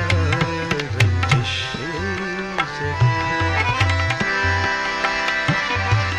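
Tabla playing a steady rhythm in a ghazal accompaniment, its deep bass drum strokes recurring under crisp treble strokes, over sustained melodic accompaniment. A wavering sung note trails off in the first second.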